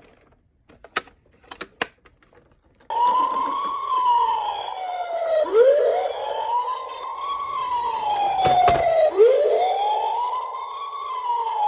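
A few light clicks, then about three seconds in an emergency-vehicle siren starts up in a wail, each cycle rising quickly and falling slowly, about every three and a half seconds. There is a short knock partway through.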